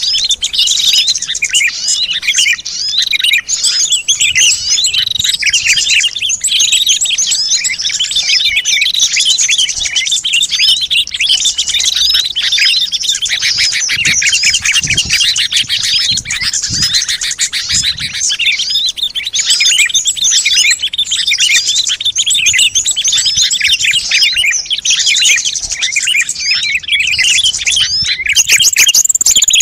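A dense chorus of many small songbirds chirping and twittering at once, with no let-up. It is a bird-lure ('pikat') recording, made to draw wild small birds in.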